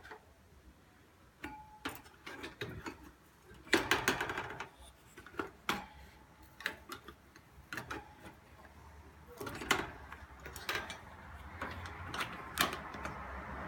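Budgerigar pecking, making a series of irregular small clicks and taps, with denser bursts about four and ten seconds in.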